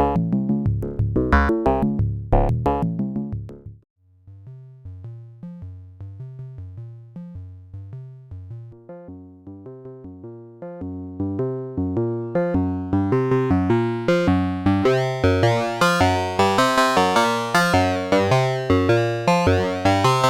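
Sequenced analog synthesizer notes from a Cre8audio Capt'n Big-O Eurorack oscillator. A punchy pattern with sharp attacks stops abruptly about four seconds in, then a repeating bass-line sequence starts quiet and dark and grows louder and much brighter and buzzier over the second half.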